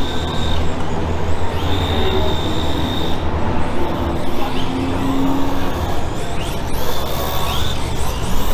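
High thin whine that comes and goes several times, some bursts sliding up in pitch, over a steady low rumble: electric motors of radio-controlled drift cars on throttle and off.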